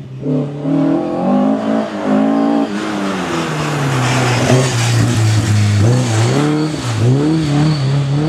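Rally car engine revving hard on a special stage, the pitch climbing and then dropping again and again as it changes gear and lifts off the throttle, with a rush of broad noise from about three to six seconds in.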